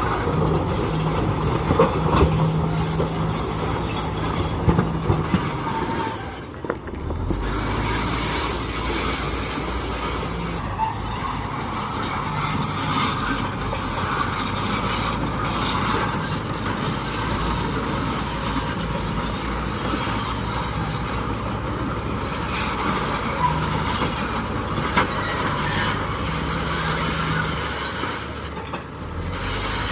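Bulldozer working: diesel engine running under load and steel tracks grinding and squealing, as one steady, loud mechanical din that dips briefly twice.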